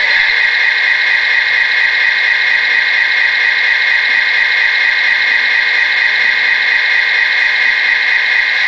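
Radio-controlled Bruder CAT D5G toy bulldozer running with a steady, even, fairly high-pitched sound and no low rumble.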